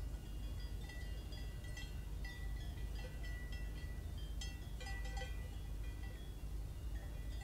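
Cowbells on grazing cattle, clanking irregularly as the animals move, many short ringing notes overlapping, over a steady low rumble.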